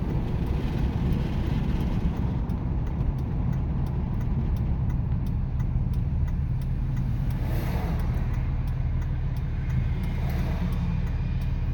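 2007 Ram 2500's 5.9-litre Cummins turbo-diesel pulling at low speed, heard from the cab with the windows down as a steady low rumble of engine and road noise. A faint thin whistle from the turbo area rides on top of it. The owner suspects a dirty intake or a leaking gasket.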